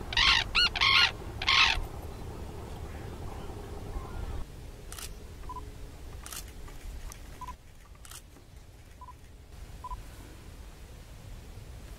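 A pair of sarus cranes trumpeting their unison call, a quick series of loud, ringing calls that stops a little under two seconds in. After that only a low rumble remains, with a few faint clicks and short, faint beeps.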